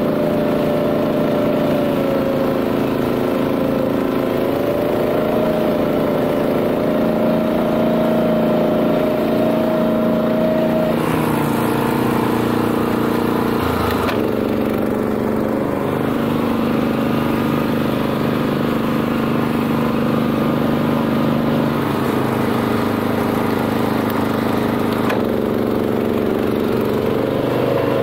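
Honda GX390 single-cylinder petrol engine of a BCS 740 two-wheel tractor running steadily while driving a flail mower. The engine note shifts a few times: about a third of the way in, again near halfway, and near the end.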